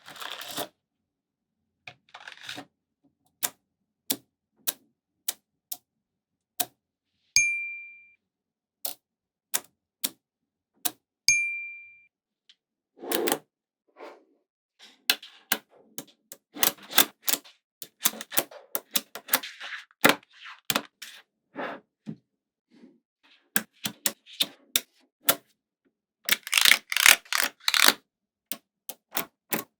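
Small neodymium magnetic balls clicking and snapping together one at a time, with bursts of quick rattling clicks as several meet at once. Twice, a click rings on briefly with a high pitch.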